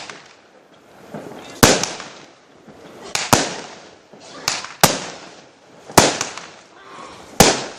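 Fireworks bursting: about six sharp bangs spaced roughly one to one and a half seconds apart, each trailing off in a long echo.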